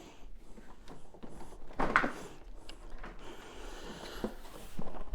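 A few scattered clicks and knocks from handling a switched-off Sebo X8 upright vacuum cleaner, the sharpest about two seconds in and a cluster near the end, with no motor running.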